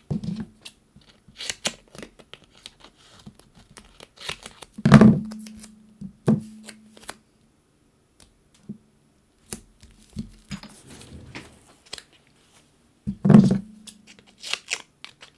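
Hands working with card-stock pieces and foam adhesive on a craft table: scattered small clicks and rustles, with two louder knocks about five seconds in and near the end.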